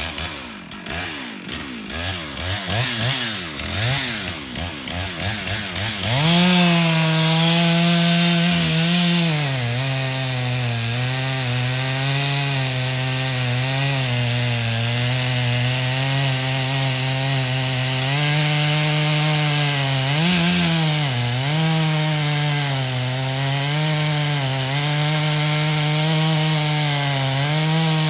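Gas chainsaw revved in quick rising and falling bursts, then held at high throttle from about six seconds in. About three seconds later its pitch sags and stays lower as it bogs under load, cutting into a tree.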